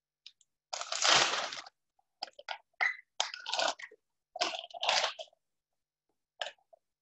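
A paper bag of cornmeal crinkling as a measuring cup scoops meal out of it, in a series of short rustles. The longest and loudest comes about a second in.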